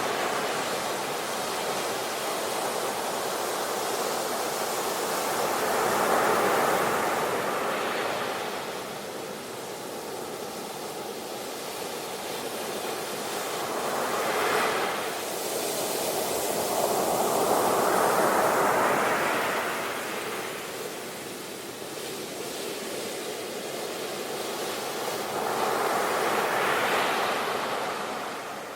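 Ocean waves washing onto the shore in slow surges, each swell building and receding every several seconds, with a steady hiss of surf between them.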